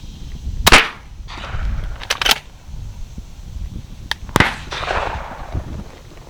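Shotgun shots at doves: a loud shot under a second in, two quick shots a little after two seconds, then two more around four seconds, each trailing off in a rolling echo.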